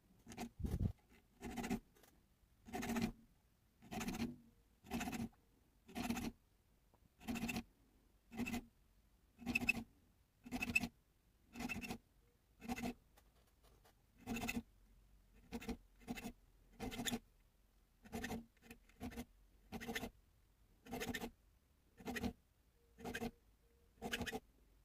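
Small triangular file rasping notches into the spine of slip joint knife liners, in short, even strokes about one a second.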